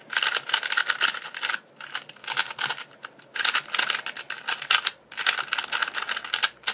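MoYu Lingpo 2x2 speed cube being turned fast, its plastic layers clicking and clacking in rapid runs. Four runs of turning come with short pauses between them.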